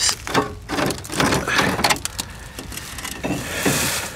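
Handling noises of a short length of old galvanized water pipe being pulled free and turned in the hand: a string of irregular knocks and scrapes, with a denser rustle about three and a half seconds in.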